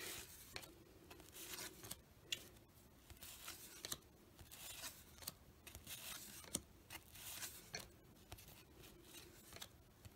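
Cardboard basketball cards sliding against each other as they are flipped one by one from a hand-held stack: faint, irregular swishes of card on card with light clicks.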